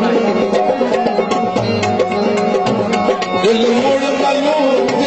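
Qawwali-style music: tabla drumming in quick strokes over the held tones of harmoniums, with a voice singing a wavering line in the second half.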